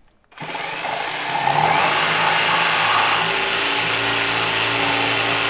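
Electric power saw cutting through a timber plank freehand: a steady, loud running noise that starts about half a second in and holds through the cut.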